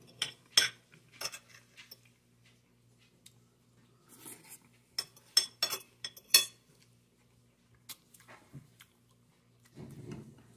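Metal spoon and fork clinking and scraping against a glass plate and a ceramic bowl while eating rice and stew: scattered sharp clinks, with a quick run of them a little past the middle.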